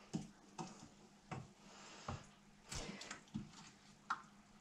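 Thick pomegranate puree slowly boiling in a pot, its bubbles bursting in faint, irregular soft pops about once every half second to second.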